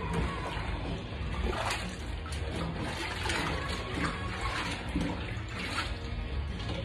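Water splashing and sloshing in a stainless steel bar sink as glasses are washed and dunked by hand, in a string of short irregular splashes.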